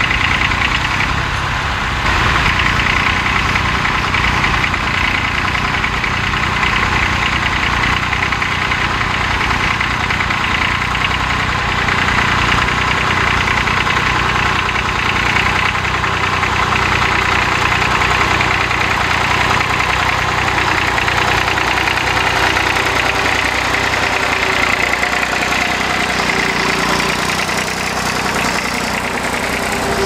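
Fordson Dexta tractor engine running steadily under load as the tractor pulls a plough.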